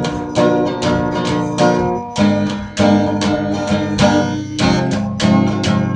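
Acoustic guitar strumming chords in a steady rhythm, about two to three strums a second.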